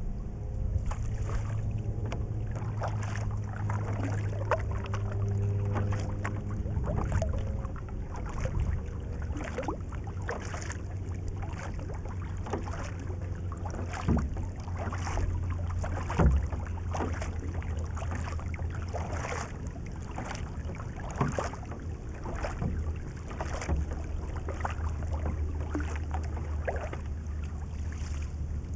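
Double-bladed paddle strokes splashing into the water, alternating sides a little more than once a second, as a Huki S1-A surf ski is paddled along. A steady low rumble runs under the splashes.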